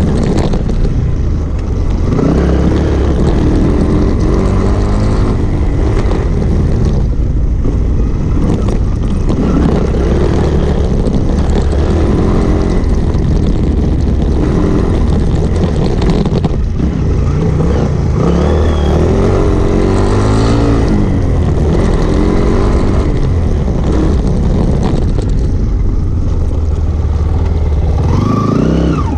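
Single-cylinder off-road motorcycle engine heard from on the bike, revving up and falling back again and again as it is ridden over a rough dirt trail.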